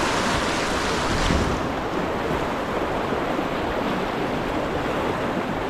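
Stream water rushing steadily, a little brighter for about the first second and a half.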